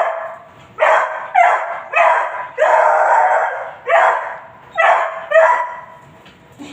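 Beagle puppy barking: a string of about eight loud barks, one drawn out to about a second near the middle. It is his excited, complaining reaction to his owners coming back.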